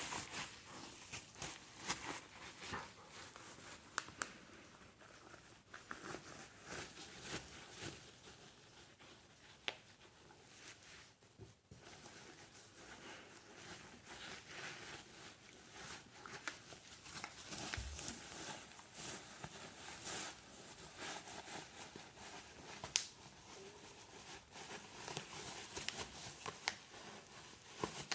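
Bubble wrap crinkling with irregular sharp pops as a dog plays with it and pops the bubbles.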